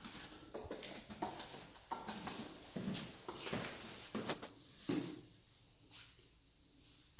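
Bricklaying: a mason's trowel scraping mortar and bricks knocking as they are set in place, in an irregular run of short knocks and scrapes that thins out near the end.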